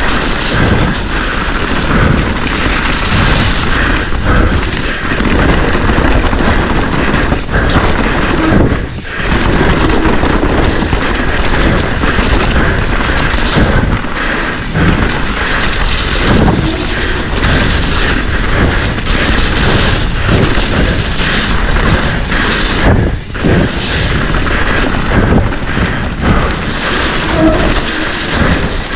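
Mountain bike descending a rough, wet trail at race speed, heard through a helmet- or bike-mounted GoPro: loud, steady rushing noise with frequent thumps and rattles as the bike hits roots and rocks, easing off briefly twice.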